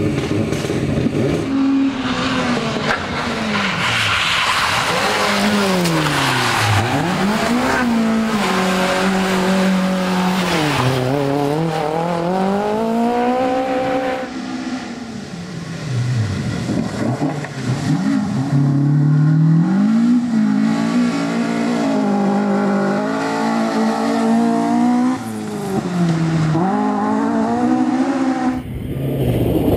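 Rally car engines at full attack, revving high and falling away again and again as the drivers change gear and lift for corners, with tyre noise over the top. The sound changes abruptly near the end.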